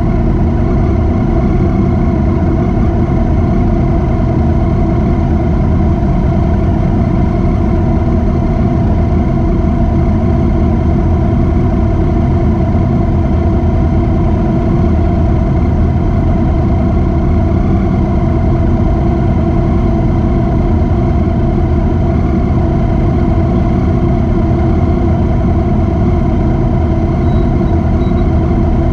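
Motorcycle engine running at a steady speed on the move, with no rise or fall in revs.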